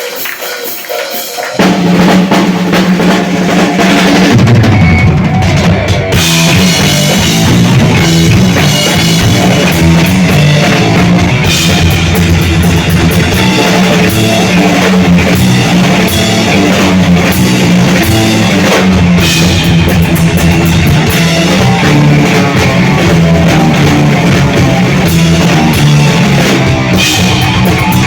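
Live heavy metal band starting up loudly about a second and a half in, with a pounding drum kit, bass and distorted guitar playing a riff.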